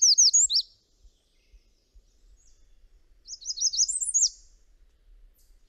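American redstart singing: two short phrases of quick, high, repeated notes, each ending in a falling note, one at the start and one about three seconds in.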